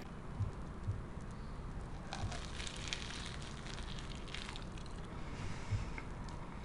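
Close-miked chewing of a crunchy bite of Flamin' Hot Cheeto shrimp: soft crackling and small crunches, fairly quiet.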